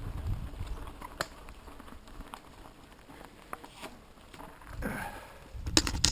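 Wind buffeting the microphone, fading in the first second and returning briefly near five seconds, with scattered sharp clicks and knocks and a quick cluster of louder clicks near the end.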